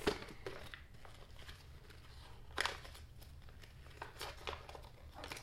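A thin toy wrapper crinkling in the hands as it is pulled open, in scattered crackles with one louder burst about two and a half seconds in.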